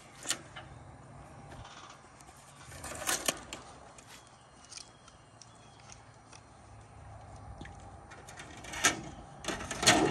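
Painted sheet metal being handled at a portable sheet-metal brake: a few scattered clicks and light metallic rattles and scrapes, with a cluster about three seconds in and the loudest clatter near the end as the strip is slid into the brake.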